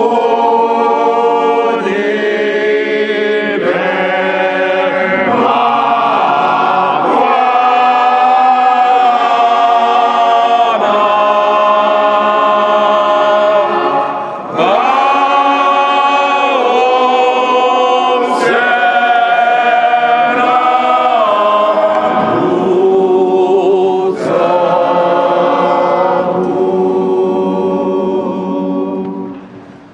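A choir singing a hymn in long phrases of held notes, with a short break about halfway through.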